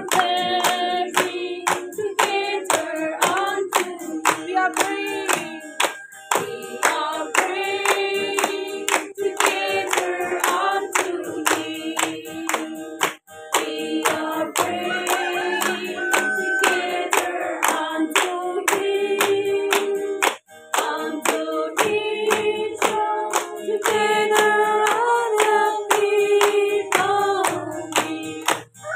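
A group of women singing together, clapping their hands in a steady rhythm.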